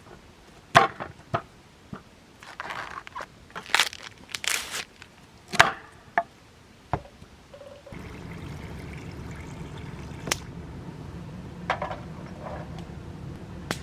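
Camp cooking handling noises: scattered knocks, clicks and rustles of a pot and corn being handled. About eight seconds in, a steady rushing noise starts, typical of a camp stove burner under the boiling pot.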